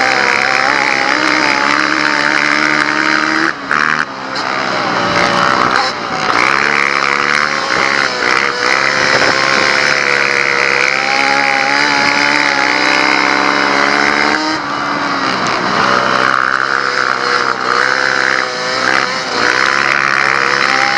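Racing quad's engine at hard throttle, heard from a camera mounted on the machine, its pitch dropping and climbing again several times as the throttle is closed for the turns and reopened down the straights.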